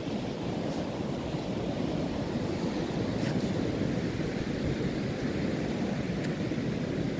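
Steady rush of sea surf on a beach, mixed with wind buffeting the microphone.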